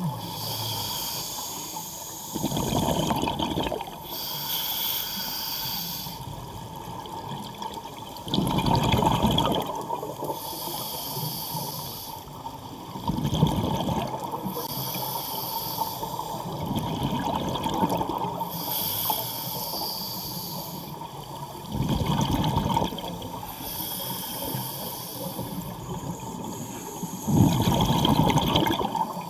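Scuba diver breathing through a regulator underwater: a hiss on each inhale, then a loud rush of exhaled bubbles, repeating about every five to six seconds.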